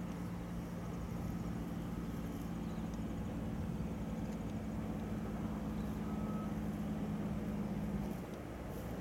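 Loaded logging truck's diesel engine pulling steadily as it approaches. The engine note steps slightly higher about three seconds in and drops away shortly before the end.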